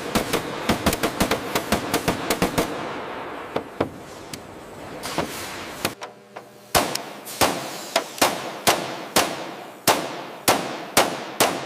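Hammer blows on metal rivets: a fast run of sharp strikes several a second that thins out after about two and a half seconds. About seven seconds in, steady ringing blows start, about two a second.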